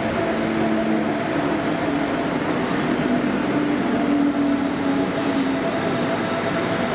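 Munich S-Bahn class 423 electric multiple unit running along the platform: a steady rumble of wheels on rail, with a few held humming tones over it.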